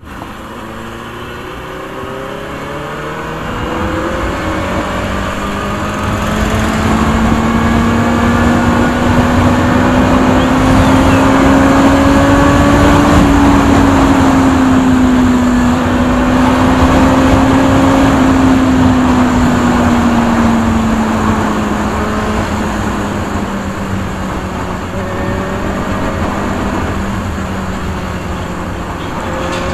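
Benelli 600i inline-four engine running on its stock exhaust. Its steady note grows louder over the first dozen seconds, holds loudest through the middle, then drops in pitch and fades over the last third, like a bike passing by. Other engines can be heard rising in pitch in the first few seconds.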